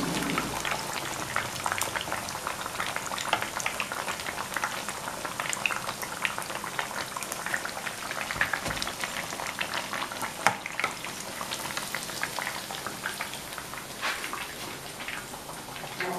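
Batter-coated fish deep-frying in mustard oil, a steady dense sizzling crackle of many small pops. A single sharp knock about ten seconds in.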